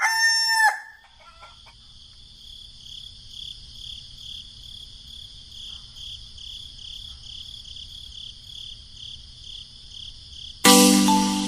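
The end of a rooster's crow in the first second, then insects, likely crickets, chirping steadily in regular pulses, about two a second. Loud marimba-like music starts near the end.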